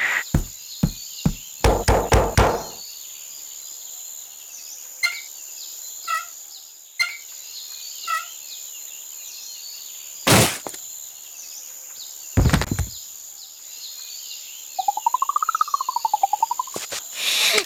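Cartoon sound effects over a steady forest background with birds chirping. A quick run of knocks opens it, two heavy thuds fall near the middle, and near the end a whistling tone rises and falls.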